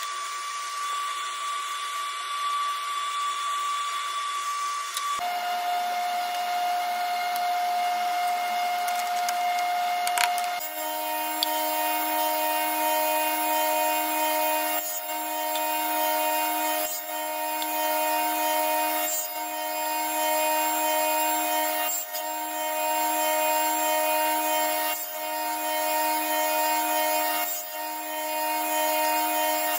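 Small table saw running with a steady motor whine, dipping briefly every two to three seconds as short pine strips are crosscut into small blocks. The whine jumps abruptly in pitch twice in the first ten seconds.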